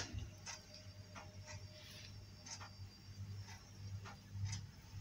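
Faint, even ticking, about two ticks a second, over a low steady hum.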